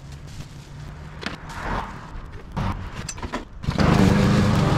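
A few scattered knocks and rustles, then about three-quarters of the way in a petrol push lawn mower's engine starts up and runs steadily and loudly.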